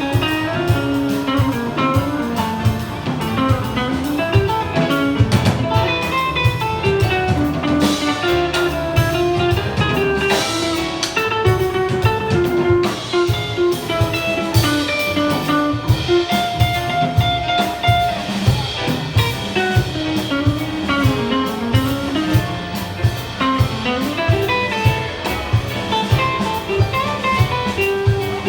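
Big band jazz playing live, with a guitar part over bass and drum kit keeping a steady beat.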